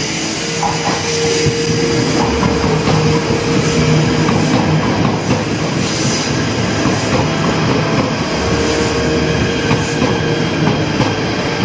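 KTM ETS electric train running past close along a station platform, a steady rumble of wheels on rail. A thin steady whine rises out of it near the start and again near the end.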